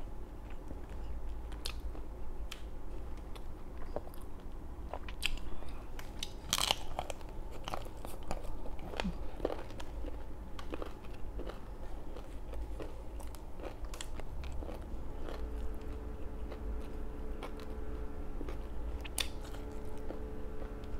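Close-up eating sounds: crunchy bites and chewing of crispy fried food, with scattered sharp crackles. The biggest crunch comes about a third of the way in.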